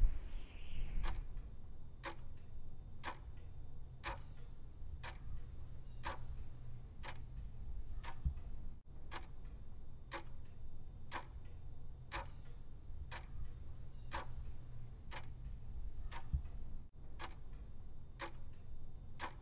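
Clock ticking steadily, about two ticks a second with a tick-tock alternation, over a low steady hum. It starts about a second in and works as a waiting timer while a choice is pending.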